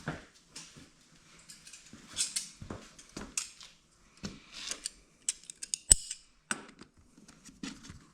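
Scattered clicks and scrapes of a hand tool working a tight-fitting part loose, with one sharp click about six seconds in.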